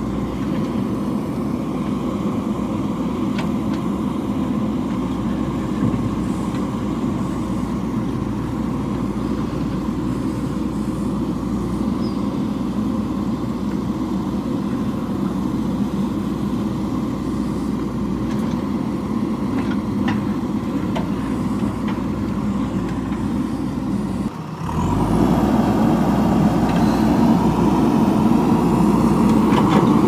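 JCB 3DX backhoe loader's diesel engine running steadily under load while the backhoe digs. About three quarters of the way through, the sound breaks off briefly and returns louder, with rising and falling tones over the engine.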